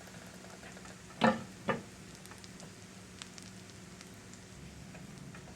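Mashed-potato pancakes pan-frying in oil and butter, a steady sizzle with small crackles. Two short knocks come close together about a second in.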